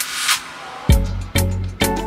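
Background music with a steady beat: a swishing cymbal-like swell at the start, then bass and drum hits about twice a second from about a second in.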